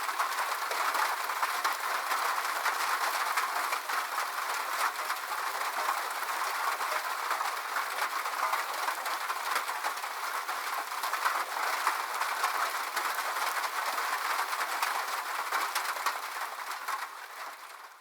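Rain falling on a metal roof: a steady, dense patter of countless small drop impacts, fading out near the end.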